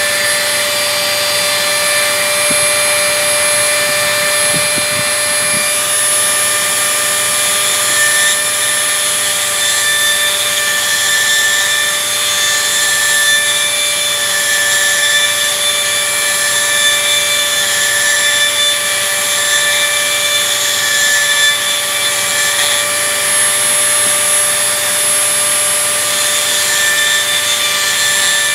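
Dremel rotary tool running at a steady speed with a high whine, its small grinding stone grinding down a small steel part of a breaker bar held in the fingers.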